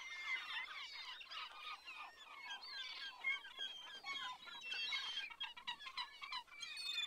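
A flock of many birds chirping and calling at once: a dense, unbroken chorus of short, overlapping high chirps and quick whistled glides.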